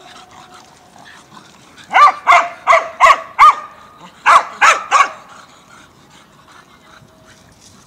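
Dog barking: five sharp barks in quick succession about two seconds in, then three more after a short pause.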